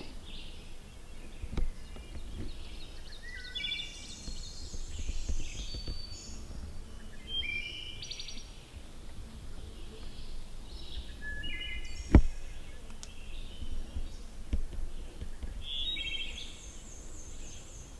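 Songbirds singing in the woods: repeated short, high-pitched song phrases and chirps throughout. A sharp knock about twelve seconds in is the loudest sound, with a couple of fainter knocks, over a low rumble.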